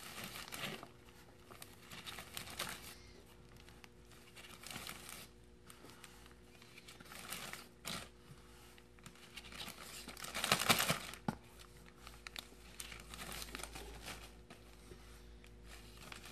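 A plastic zip-top bag crinkling while handfuls of damp peat moss are scooped into it, in intermittent rustles. The loudest rustle comes about ten and a half seconds in.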